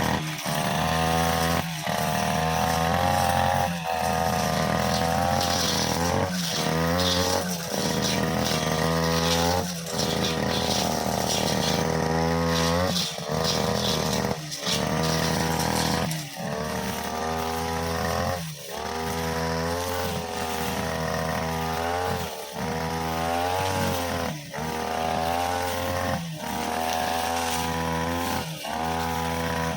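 OGAWA brushcutter engine running at high speed while its metal blade cuts long grass. Its pitch and level dip briefly every two seconds or so as the blade swings into the grass and takes the load.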